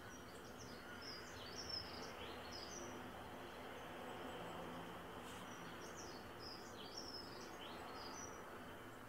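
A small songbird singing two phrases of quick, high chirping notes a few seconds apart, over a steady background hiss of outdoor noise.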